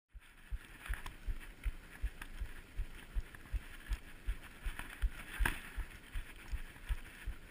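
Rhythmic low thumping, about three beats a second, during a hard mountain-bike climb on gravel; the video presents it as the rider's heartbeat during the climb. Faint crackles of grit under the tyres and chain come through now and then.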